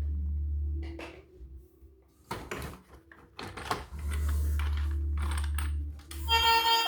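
Irregular clicks and taps of plastic toys and packaging being handled, over a low hum that comes and goes. A music track starts just before the end.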